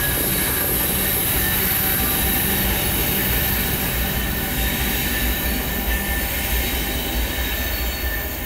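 Loaded coal train rolling past: a steady rumble from the cars and wheels, with a thin, faint high wheel squeal over it, easing slightly near the end.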